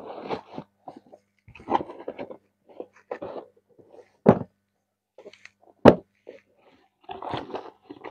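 Cardboard shoeboxes and the paper wrapping inside them being handled: irregular rustling and crinkling, with two sharp thuds about four and six seconds in as a box is knocked or set down.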